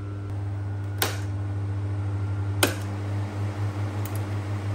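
Fresh box fan running on a UPS's battery power with a slight steady buzz. Three sharp clicks, about a second and a half apart, come from its push-button switches being pressed.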